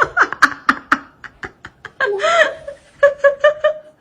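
A person laughing: a pitched burst about halfway through, then a quick run of about six short 'ha' pulses near the end. Sharp clicks fill the first two seconds.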